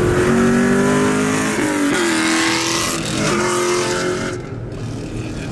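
Muscle car engine accelerating hard under load. Its pitch climbs steadily, then drops back at upshifts about one and a half and three and a half seconds in.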